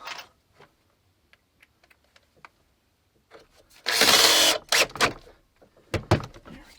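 A power drill driving a screw in one short burst of whirring about four seconds in, among scattered knocks and clicks of hand work.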